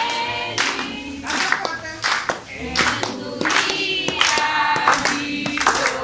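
A group of people singing together in unison while clapping along in a steady rhythm.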